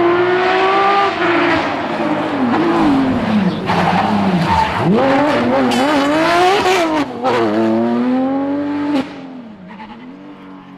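Porsche 911 GT3 rally car's flat-six engine braking and downshifting with throttle blips into a tight junction, then accelerating hard away with steeply rising revs and an upshift. There is a brief high tyre squeal about six seconds in. Near the end the engine sound drops away abruptly.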